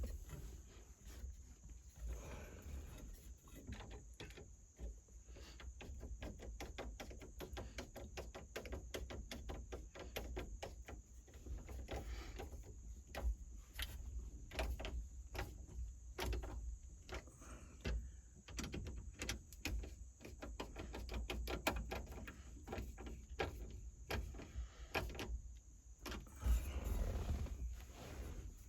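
Dense, irregular clicking and light knocking of small parts being handled and fitted by hand, many clicks a second, over a faint steady hiss.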